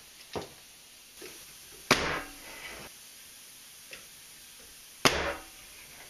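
Bostitch pneumatic nail gun firing twice, about three seconds apart, driving nails through a pine board into the nesting-box sides. Between the shots there are faint clicks of the boards being handled.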